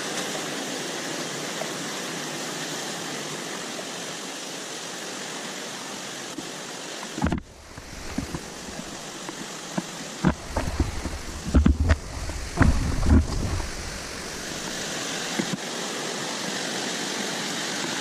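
Steady rush of a rocky mountain stream. From about seven seconds in, irregular heavy low thumps and bumps break in for several seconds: handling noise from a camera being carried over boulders.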